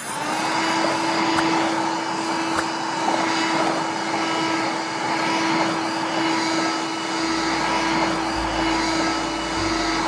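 Pink battery-powered toy vacuum cleaner running, a steady motor whir with a constant hum.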